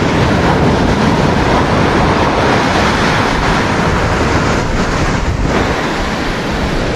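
Steady wind buffeting the microphone over the wash of surf, a dense, even rushing noise with a heavy low rumble.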